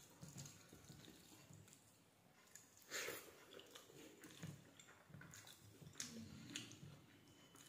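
Faint sounds of eating by hand: fingers working rice on a stainless steel plate and soft chewing, with scattered small clicks and a brief louder one about three seconds in.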